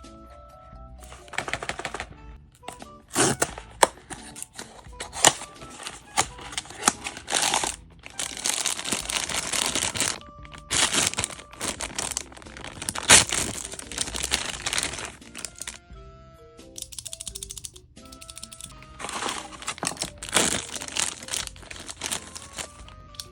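A blind-box packaging wrapper crinkling and rustling in repeated irregular bursts as it is handled and torn open, over light background music with a simple melody.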